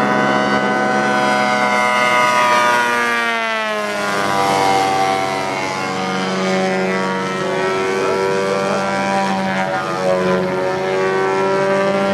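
Engine of a radio-controlled Ultimate 10-300S aerobatic biplane model in flight. Its pitch drops about three seconds in, then it runs steadily at the lower pitch.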